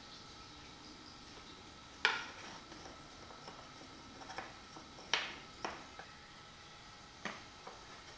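Thin pine strips being handled on a tabletop: a series of sharp, light wooden knocks as they are set down and pushed together. The loudest knocks come about two seconds in and just after five seconds.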